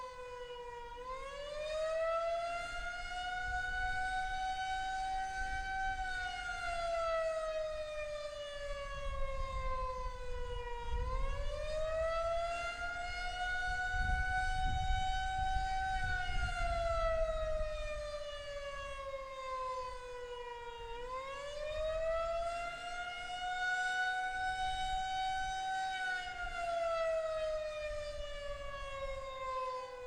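Federal Signal 2001-130 outdoor warning siren sounding the attack signal: the tone rises in about two seconds, holds, then falls slowly, starting over about every ten seconds, three times. Its rotator is broken, so the horn stays pointed one way instead of sweeping.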